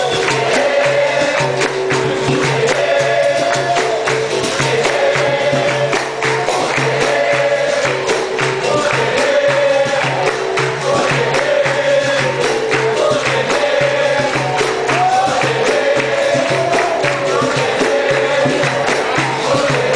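Capoeira roda music: a group sings in chorus over berimbaus, with hand clapping and percussion keeping a steady beat.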